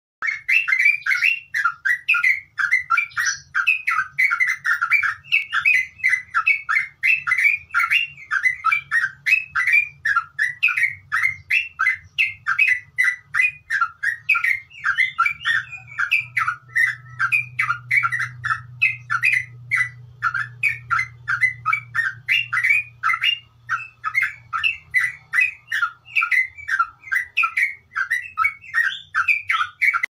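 Yellow-vented bulbul (trucuk) singing its long, run-on 'ngeropel' song: a fast, unbroken stream of short chirping notes, several a second, with no pause.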